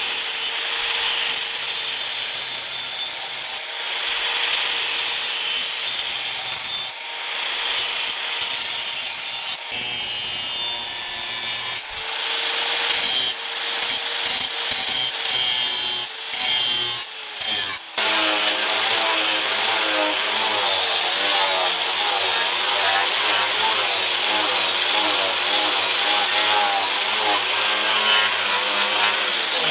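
Electric angle grinder running with an abrasive disc ground against a steel cleaver blade: a steady motor whine under a harsh rasping of disc on metal. Between about 12 and 18 seconds in, the sound cuts out and restarts several times, then the grinding carries on steadily.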